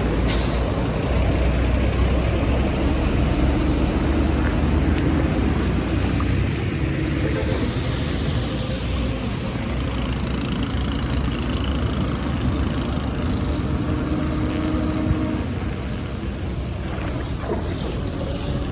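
Water rushing steadily with a deep rumble, as from a drain or culvert running freely.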